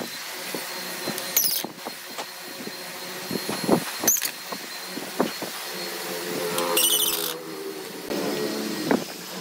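Cordless drill driving screws into a wooden bed post, its motor whining in short runs, the longest about six seconds in and another near the end, among knocks and clicks of wood and tool being handled.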